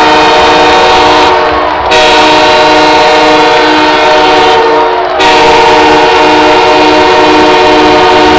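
Arena goal horn sounding for a Los Angeles Kings home goal: a loud, many-toned horn chord in long blasts, restarting about two seconds in and again about five seconds in.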